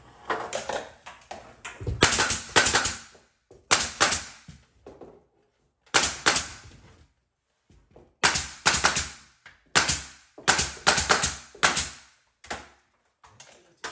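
Pneumatic nail gun driving nails into crown molding: a string of sharp shots in quick clusters of two to four, with short pauses as the gun is moved along the molding.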